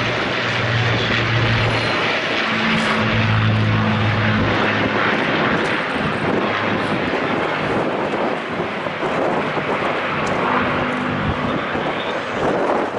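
Piston-engined World War II propeller aircraft flying overhead: a steady engine drone with a low hum that swells and fades a few times.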